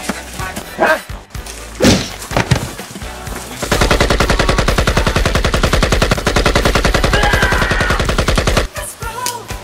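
Automatic gunfire: a few scattered knocks, then a long rapid burst of machine-gun fire lasting about five seconds that starts a few seconds in and stops shortly before the end.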